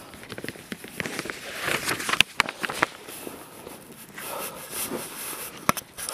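Footsteps on a hiking trail: an uneven run of sharp crunches and clicks, loudest around two seconds in and again shortly before the end.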